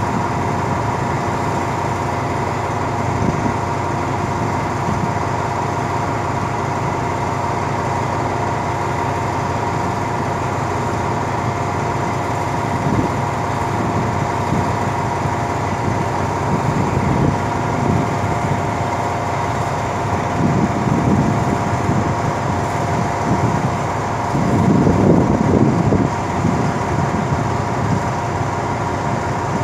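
Diesel locomotive of a standing passenger train idling steadily, with a constant whine over its low rumble. The rumble swells briefly a few times in the second half, loudest near the end.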